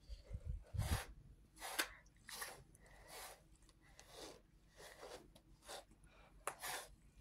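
Wire-bristle slicker brush drawn through a cat's fur in repeated strokes, each a short brushing noise, roughly one a second.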